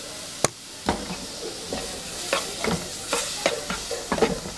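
Sliced tomato, onion and sweet pepper sizzling lightly in a dry nonstick pot, cooked without oil, as they are stirred with a spatula: repeated scrapes and taps of the spatula against the pot over a steady hiss, with one sharp tap about half a second in.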